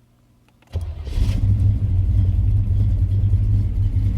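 1985 Chevrolet Monte Carlo SS's V8 engine starting less than a second in: it catches quickly and settles into steady, loud running.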